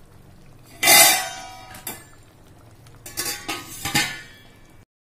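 Stainless steel pot and lid clanking: one loud ringing clang about a second in, then a few lighter metal clinks around three to four seconds in.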